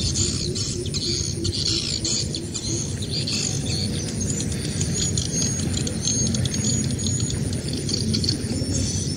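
Birds chirping in many short, high calls over a steady low rumbling noise.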